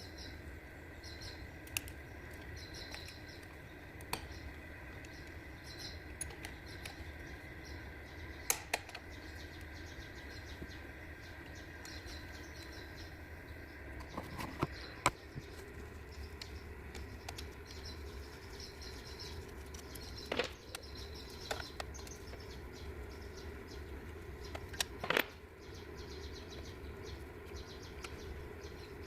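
Scattered clicks and knocks of hand tools working on a car engine over a steady hum, with small birds chirping in the background.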